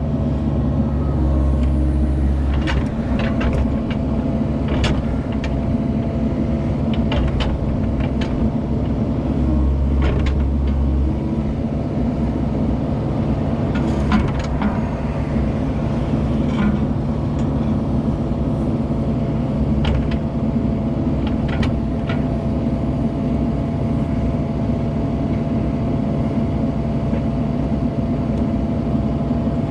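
Heavy diesel engine running steadily, its low note shifting with the load every few seconds, with scattered short metal clanks and knocks.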